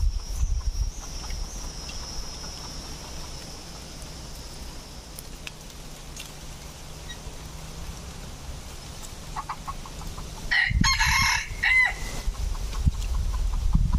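Red junglefowl rooster crowing once, a short crow about eleven seconds in, preceded by a few soft clucks.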